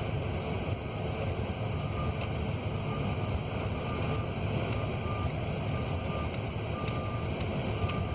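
Steady low rumble of a truck driving slowly over rough ground. Over it, a faint reversing alarm beeps repeatedly, about once a second, from a machine backing up.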